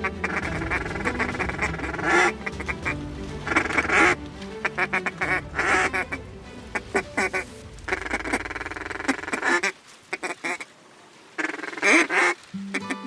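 Repeated duck quacks in bursts over steady background music, with a brief lull between about 10 and 11 seconds in.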